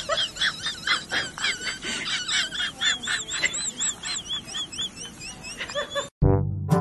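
A small bird chirping rapidly, short high arched calls about three or four a second. The chirping cuts off abruptly near the end and brass music starts.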